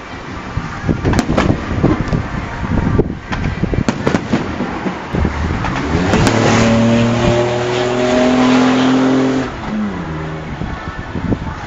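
Fireworks bursting in scattered sharp bangs and crackles. From about five seconds in, a motor engine revs up, holds a high steady pitch for about four seconds, then drops away.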